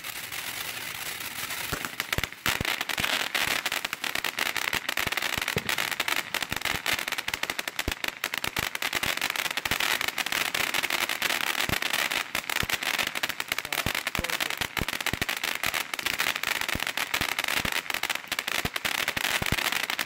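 World Class Fireworks 'Time to Shine' 200-gram fountain burning: a steady hiss of spraying sparks packed with irregular crackling. It gets louder and denser about two seconds in.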